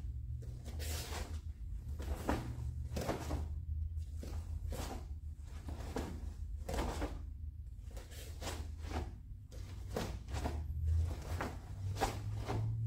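Taekwondo uniform snapping and bare feet landing on training mats with each block, punch and kick of the form: a string of short, sharp thuds and swishes about one every half second to second, over a steady low hum.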